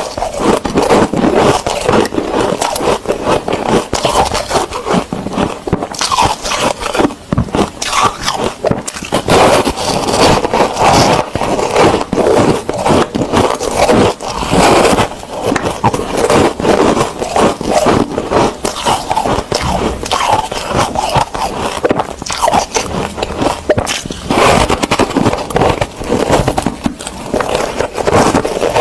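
Foam ice being bitten and chewed: loud, dense crackling crunches, one after another.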